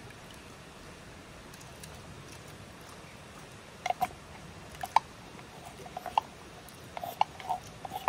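Canned sweet corn scraped out of its tin with a wooden spoon and dropping into a pot of milky soup: a scattered run of short wet plops and clicks starting about four seconds in, over a steady background rush of stream water.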